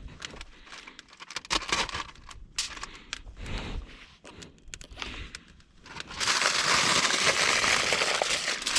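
Crinkling and rustling of food packaging being handled, in scattered short rustles and clicks at first, then about six seconds in a louder, continuous crinkling rush.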